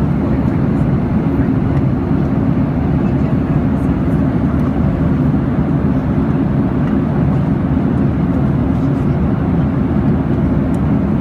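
Airliner cabin noise in flight: a steady, deep rumble of engines and rushing air that holds an even level throughout.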